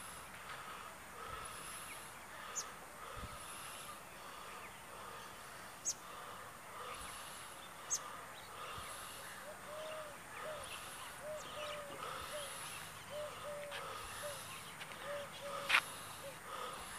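Hoopoe giving its soft, low hooting 'oop-oop' notes in short runs, about two a second, through the second half. Behind it there is a pulsing high hiss and a few short sharp clicks, and one louder sharp knock comes near the end.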